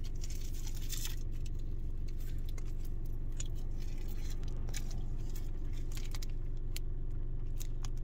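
Foil candy wrapper crinkling in scattered crackles as it is unwrapped, over the steady low drone of a car cabin.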